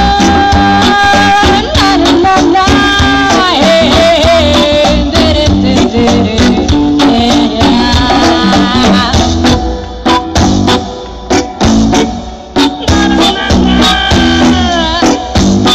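Reggae band playing an instrumental passage: a held, bending lead melody over bass, drums and a shaker, with the beat thinning out about halfway through.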